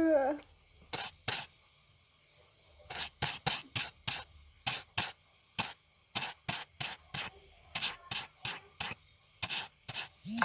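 Repeated short, sharp scraping strokes on a surface, in uneven runs of about two or three a second with short pauses between runs.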